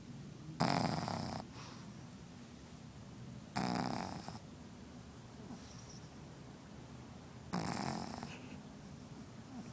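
Pugzu (pug and shih tzu cross) puppy snoring in its sleep: three snores, one about every three to four seconds.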